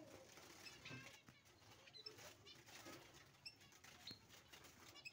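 Faint fluttering of society finches and light rattling of their wire cage as a hand reaches in to catch the fledglings, with a few short, high chirps.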